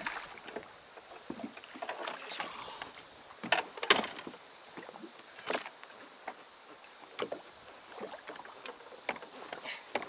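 A hooked bass splashing and knocking at the boat's side as it is played and landed, in sharp strokes loudest around four seconds in and again at five and a half. Under it, a steady high hum of cicadas.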